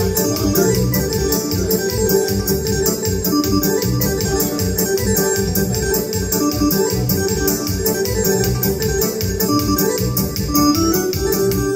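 Instrumental party music led by an electronic keyboard with organ-like sustained chords, over a steady, quick beat.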